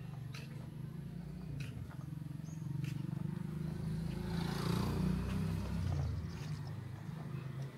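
A low engine rumble, swelling to its loudest about halfway through and then easing off.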